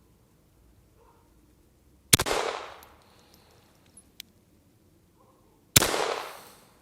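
Two shots from a Star Model F .22 LR pistol firing RWS Target Rifle rounds, about three and a half seconds apart. Each shot is followed by an echo that dies away within about a second.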